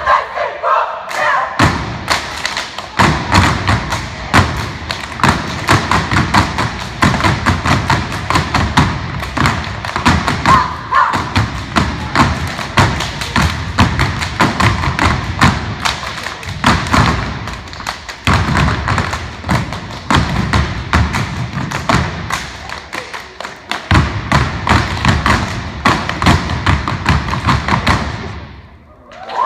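Step team stepping: fast, rhythmic stomps of heeled shoes on a wooden gym floor mixed with hand claps, with some voices among them. The stepping stops near the end.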